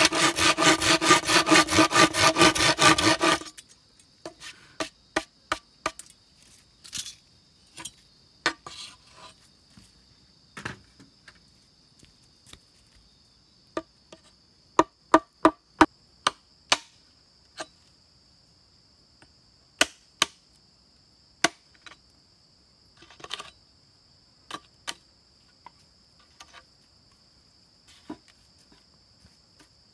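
Hand saw cutting through a green bamboo pole with quick back-and-forth strokes, stopping about three and a half seconds in. A machete then chops into the bamboo in sharp single blows, some in quick runs of three or four, over a steady high-pitched buzz.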